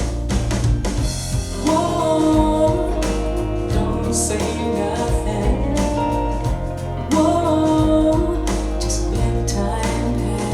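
A recorded song playing: a singing voice over a band, with a steady bass line and cymbals.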